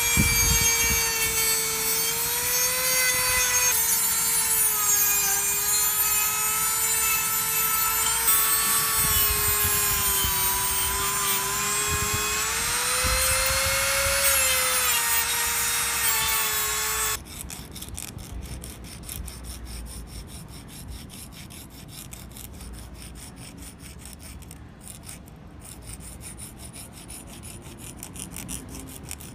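A power tool running during gun-restoration work, its whine wavering up and down in pitch as the load changes. About seventeen seconds in it cuts off suddenly, and quieter, rapid rubbing strokes follow.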